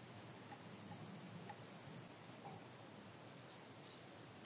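Faint steady high-pitched drone of insects over a low hiss, with a few faint light ticks.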